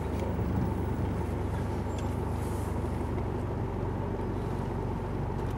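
Four-wheel-drive vehicle engine running steadily at a low idle.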